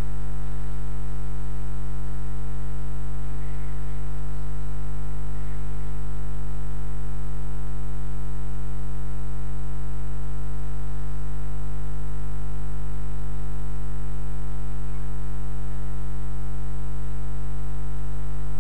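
Loud, steady electrical mains hum: a low buzz with a long stack of even overtones that never changes.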